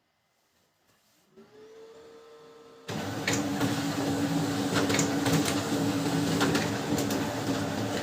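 Pantum M7102DW laser printer running a print job: its motor starts with a short rising whine about a second and a half in, then the paper feed and fuser drive run loudly and steadily with scattered clicks before stopping near the end. It runs without the 'karr karr' grinding, its broken fuser unit now replaced.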